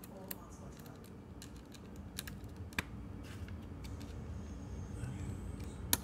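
Light, scattered clicks and taps of small steel lock parts (springs, hub and levers) being handled and seated in a mortise lock's metal case.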